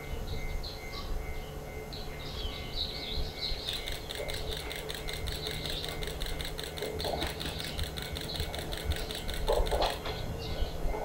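Diesel railcar of the Akechi Railway idling at a station, a steady low hum, with a rapid, even mechanical ticking from about four seconds in until near the end.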